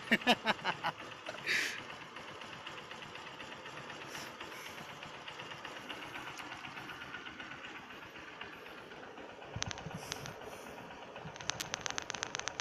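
Honda TMX Supremo 150 motorcycle's single-cylinder engine idling slowly on choke after a cold start. A few sharp clicks in the first second, and a quick run of clicks near the end.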